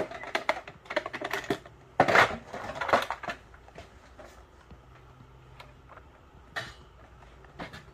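Metal latches of an aluminium game case clicking open, followed by a louder clatter of the lid being lifted and the loose game pieces and bags inside rattling; a few scattered clicks near the end.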